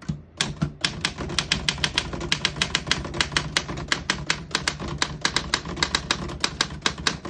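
LC Smith Model 8 manual typewriter being typed on: a fast, even run of key strikes with the typebars hitting the platen, several a second.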